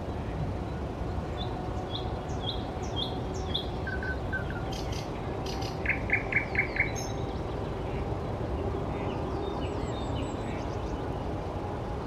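Songbirds singing: rows of short, high repeated notes, with a run of five loud, quick notes about halfway through, over a steady low background rumble.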